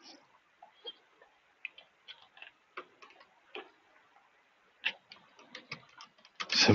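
Computer keyboard and mouse clicks: scattered single clicks, then a quicker run of keystrokes about five seconds in.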